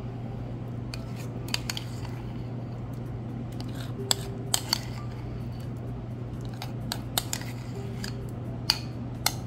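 A utensil clicking and scraping against ceramic bowls as thick yogurt dressing is scraped out onto sliced cucumber. There are a few scattered sharp clicks over a steady low hum.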